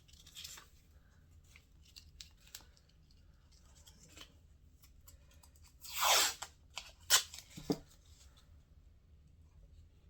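Painter's tape pulled off and torn, a half-second ripping pull about six seconds in followed by two sharp snaps, amid faint clicks and rustles of handling.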